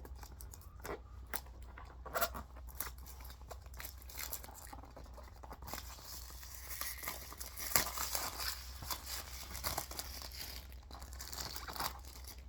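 Plastic shrink-wrap seal being cut, torn and peeled off a DVD keep case: crinkling and tearing with scattered sharp clicks, densest in the second half.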